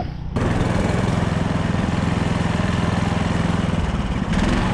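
A homemade snow vehicle's 20 hp engine running steadily while it is ridden, with wind noise over the microphone.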